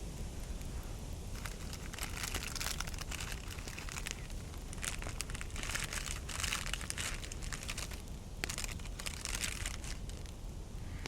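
Crinkling, crunching handling noise in three irregular bursts of a second or two each, over a steady low rumble.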